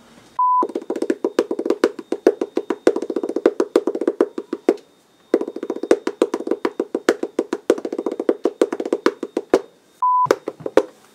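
A short test-tone beep, then a long run of rapid, sharp clicking, many clicks a second, with a brief break about halfway, and a second beep near the end.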